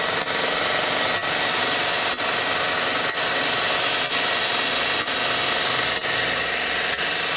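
Belt sander grinding brown mallee hardwood knife-handle scales to shape, a steady loud rasping with a short dip in the sound about once a second.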